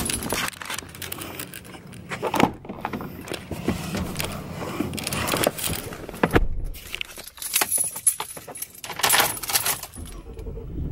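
A bunch of keys on a carabiner keychain jangles and clicks as it is handled. A pickup truck's door shuts with one heavy thud about six seconds in, and more key clicks follow as the key goes into the ignition near the end.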